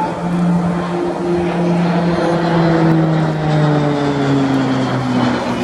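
Propeller aircraft flying past, its engine note sliding slowly down in pitch as it passes.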